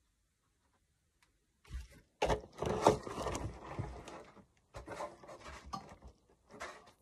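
Handling noise from a 3D-printed PLA helmet piece being moved and turned in the hands: irregular rubbing, scraping and knocking. It starts nearly two seconds in, is loudest over the next two seconds, and trails off in shorter bursts.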